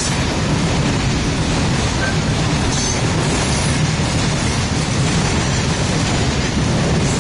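Freight train's grain hopper wagons rolling past at speed: a steady, loud rumble and rush of steel wheels on rail, with a brief faint high-pitched streak or two.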